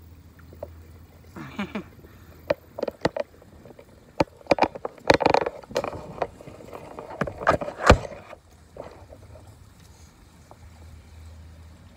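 Scattered clicks, knocks and clatter of a fishing rod and spinning reel being handled in a plastic kayak, busiest about five seconds in with one sharp knock near eight seconds, then settling to quiet.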